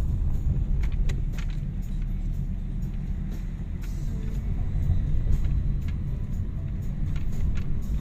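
Car driving heard from inside the cabin: a steady low rumble of engine and tyres on rough, patched asphalt, with scattered small knocks and rattles from bumps in the road surface.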